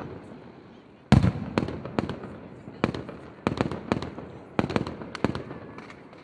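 Fireworks going off: a heavy boom about a second in, followed by rapid sharp cracks and bangs, with fresh clusters of bangs coming every second or so.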